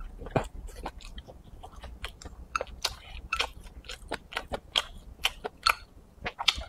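A person chewing a mouthful of rice with stir-fried chicken giblets and pickled peppers: wet smacking and crunching clicks, several a second at an uneven pace.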